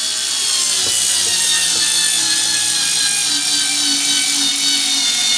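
Ryobi 4V cordless screwdriver running continuously under load as it drives a Pozidriv PZ2 screw into a wooden log. Its motor and gearbox whine falls slowly in pitch.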